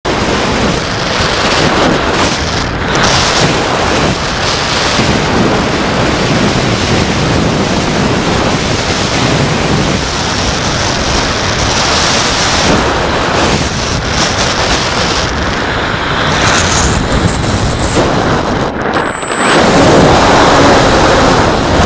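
Wind rushing over a camera mounted on a Phoenix 2000 RC glider in flight: a loud, steady roar of noise. Near the end it dips briefly, then swells louder as the plane comes down into the ground cover.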